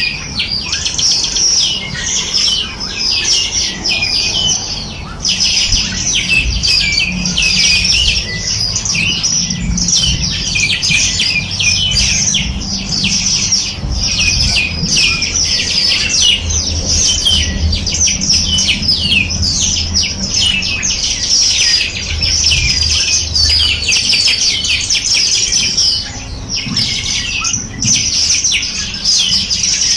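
A dense chorus of many small songbirds chirping and trilling at once, quick high notes overlapping without pause, over a steady low rumble.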